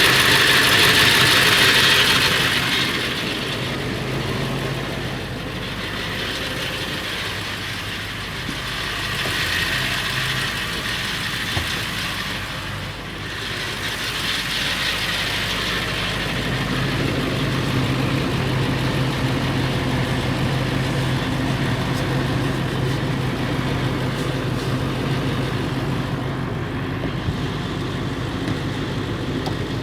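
Ford 7.3L Powerstroke V8 turbodiesel idling steadily, with a rattle that the owner cannot place and suspects may be the flexplate or the engine itself. The engine note gets fuller about halfway through.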